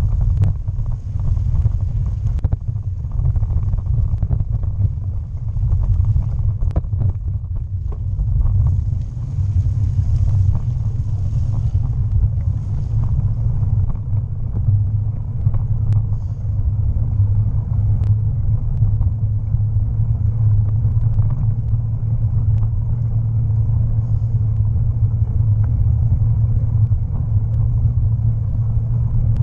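Bicycle rolling along a canal-tunnel towpath: a steady low rumble from the tyres on the path, with scattered small knocks and rattles as it goes over bumps.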